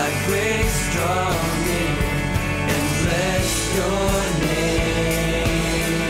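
Contemporary Christian worship song playing: a singing voice over a full band, continuous and steady in level.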